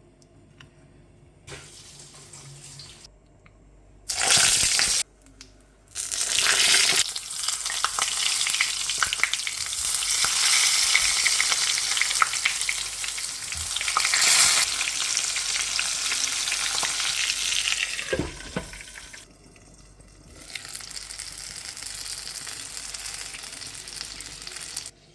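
Food sizzling as it fries in hot oil in a pan, with stirring. A short loud burst comes about four seconds in, then a long stretch of steady sizzling, then a quieter stretch near the end. The sound breaks off abruptly several times.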